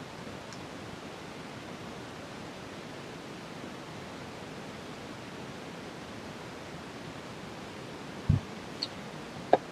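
Steady background hiss of room tone, with a short low thump and a couple of faint clicks near the end.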